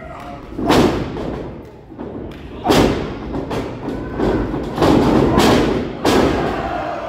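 Wrestlers' bodies slamming onto a wrestling ring's mat: three heavy thumps, about a second in, near three seconds and about six seconds in, each with a short echo.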